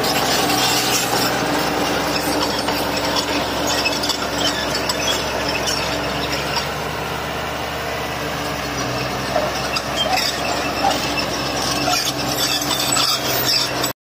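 Crawler bulldozer working, its diesel engine running steadily under load amid the clatter and squeal of its steel tracks and blade.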